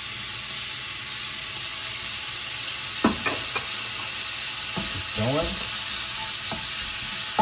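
Diced pancetta sizzling steadily as it fries in hot avocado oil in a nonstick pan. A utensil stirring it makes a few short scrapes about three and five seconds in, and there is a sharp tap near the end.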